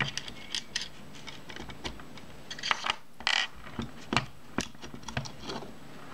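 Small metal clicks and clinks from a Kodak Retina Ia camera body being handled as its top cover is lifted off, with a brief scratchy rasp a little past three seconds in.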